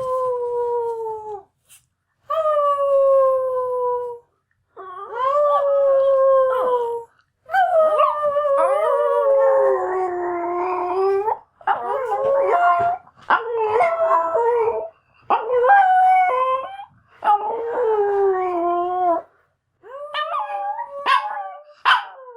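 Two dogs howling: long, slightly falling howls of a second or two each, separated by short gaps. From about five seconds in the two voices overlap at different pitches, and the later howls break into shorter, wavering notes.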